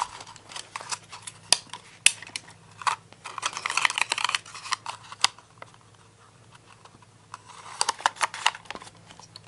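Hands loading a roll of 120 film into a twin-lens reflex camera: the paper backing rustles, with scattered sharp clicks of the spool and metal camera parts and a quieter stretch in the middle.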